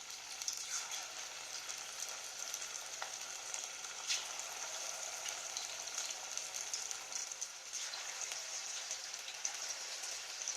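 Marinated chicken pieces deep-frying in hot oil in a kadai: a steady sizzle with scattered small crackles and pops.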